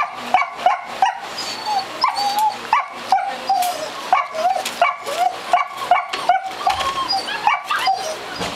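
Young puppies yipping and whining in a steady string of short, high calls, about three a second, some dropping in pitch.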